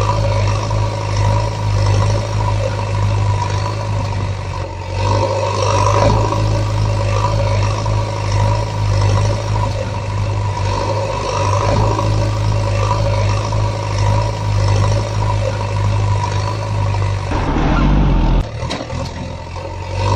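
A vehicle engine running steadily with a constant hum, briefly changing about three seconds before the end.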